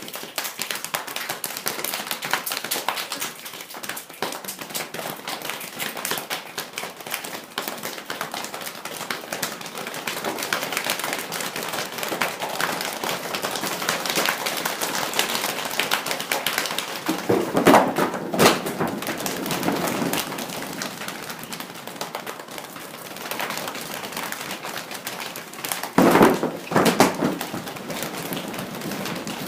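Dense, continuous pattering of many small taps, a rain sound made by hand, with two louder bursts of fuller thumping, one about halfway through and one near the end.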